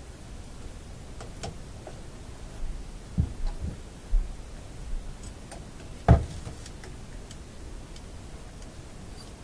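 Scattered clicks and low knocks of hand tools and fingers working at a metal radio chassis while a capacitor is fitted, the loudest a sharp knock about six seconds in.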